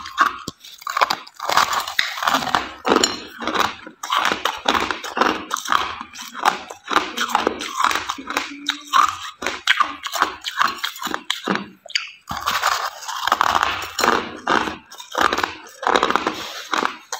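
Packed crushed ice being bitten and chewed: dense, crackling crunches in quick runs, with short pauses between bites and a brief break about twelve seconds in.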